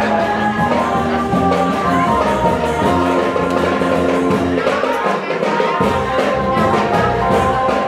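Music playing continuously: held melody notes that change pitch every second or so, over a steady accompaniment.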